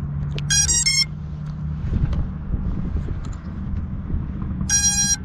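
Car engines idling with a steady low rumble. Two short, bright, high-pitched tone bursts come through, one about half a second in and one near the end.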